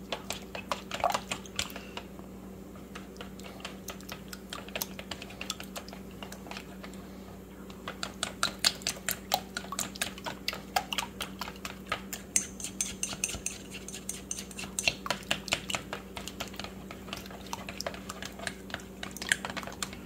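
Chopsticks beating raw eggs in a stainless steel mixing bowl, clicking and scraping against the metal side. The clicks are scattered at first and come quicker and denser from about eight seconds in.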